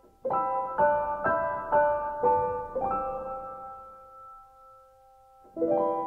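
Piano background music: a phrase of single notes struck about twice a second, left to ring and fade, then a new chord near the end.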